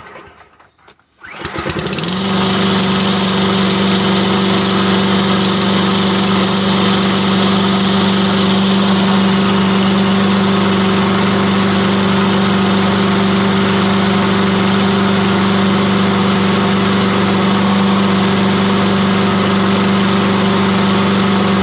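Yardmax 201cc single-cylinder lawn mower engine pull-started from cold, catching about a second in and then running steadily and loudly.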